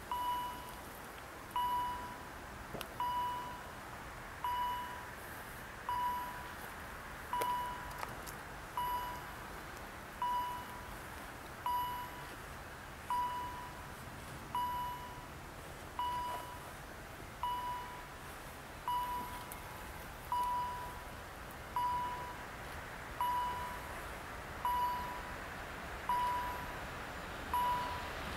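Level-crossing warning bell ringing steadily, one electronic ding about every one and a half seconds, signalling an approaching train.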